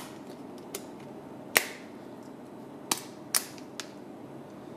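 Plastic back cover of a Smartfren Andromax C3 phone being pressed onto the body, its clips snapping into place: about six sharp clicks spread over the few seconds, the loudest about a second and a half in.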